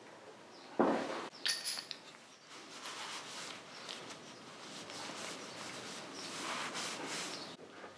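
Workshop handling noises from stripping a motorcycle: a thump about a second in, then a ringing metal clink, then several seconds of scraping and rustling.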